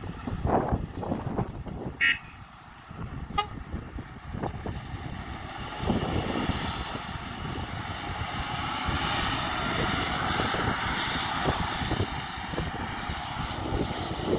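Heavy diesel machinery running, with a short horn toot about two seconds in. From about six seconds in the loaded Volvo A40G articulated dump truck's engine grows louder and its note rises as the truck pulls away, with wind buffeting the microphone.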